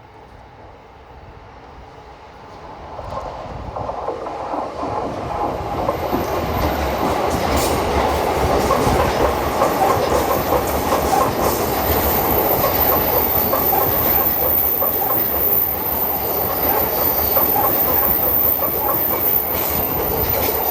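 JR East E235 series electric train passing, its wheels running on the rails. The noise grows louder over the first few seconds and then stays loud as the cars go by.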